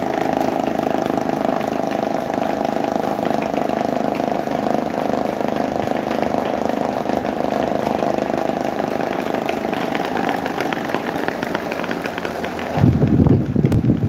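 Several small electric fans running together: a steady whir of spinning blades with a faint motor hum. Near the end the airflow from a fan hits the microphone, a sudden loud low buffeting.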